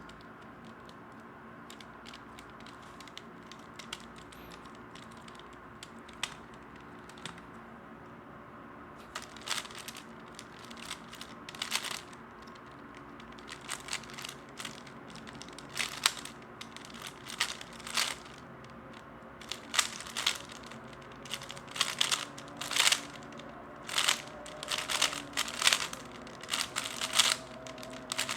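3x3 Rubik's Cube being turned by hand in a speedsolve: plastic layers clicking and clattering. It starts with a few scattered clicks, then from about nine seconds in comes a rapid run of turning bursts, over a faint steady hum.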